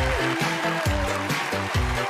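Background music with a steady beat, bass thumps about twice a second under a sustained melody.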